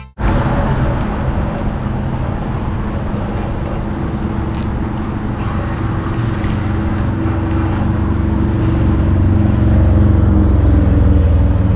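Road traffic running steadily, growing louder toward the end as a vehicle comes closer.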